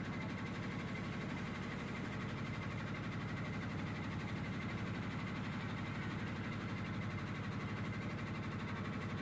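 Tour boat's engine running steadily, heard on board: a low, even drone with a fast throb.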